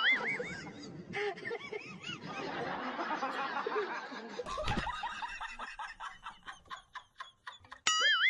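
Laughter, with a run of rhythmic laughing pulses in the second half. A short warbling, wavering tone sounds at the start and again near the end.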